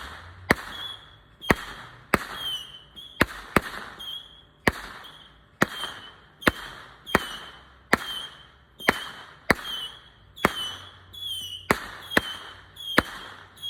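Consumer fireworks firing a steady run of sharp bangs, a little over one a second, each followed by a brief whistle and crackle, as from a multi-shot cake.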